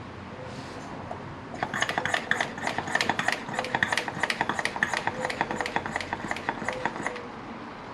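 Hand vacuum brake bleeder drawing fluid and air from a motorcycle rear brake caliper as the reservoir runs dry: a run of quick, sharp clicks, about four a second, starting a second and a half in and lasting some five seconds.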